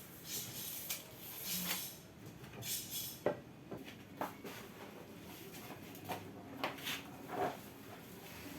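Scattered light knocks, clicks and short scraping sounds, irregular, with the sharpest knock about three seconds in.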